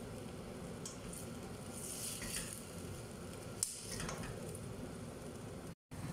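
Liver and vegetables sizzling in a frying pan on a gas burner as they are stirred with a spatula, over a steady low hum. There is a single sharp clink about three and a half seconds in, and the sound cuts out briefly near the end.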